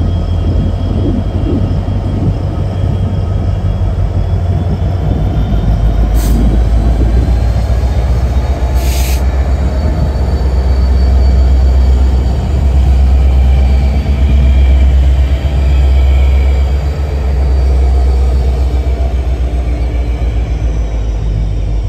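Freight train passing close by: the wheels of its rail cars rumble and clatter steadily over the track, with faint wheel squeal above. The rumble grows louder through the middle of the passage.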